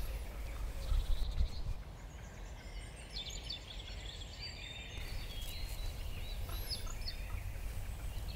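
Quiet woodland ambience: a low, steady wind rumble on the microphone, with faint, short bird chirps now and then.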